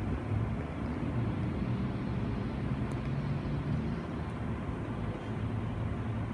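Steady low rumble of vehicle engines from road traffic.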